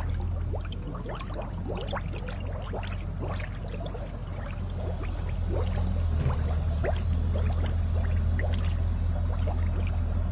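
Manure slurry pouring and gurgling out of a biogas digester's discharge outlet, full of small bubbling blips over a steady low hum, a little louder from about six seconds in. Gas churning inside the digester is what pushes the residue out.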